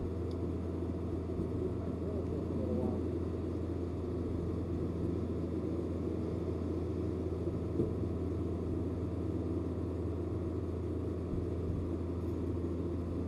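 A motor running steadily, a constant low hum with fainter even tones above it.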